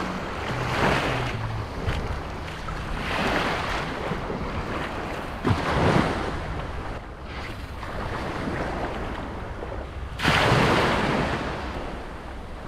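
Small waves washing in and out at the water's edge, swelling every two to three seconds with a louder wash near the end, over wind on the microphone.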